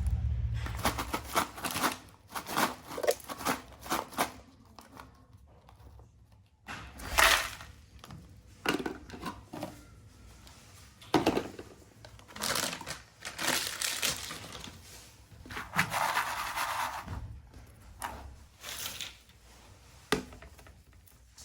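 Plastic snack packets crinkling and being torn open, in irregular rustles with a few sharper crackles.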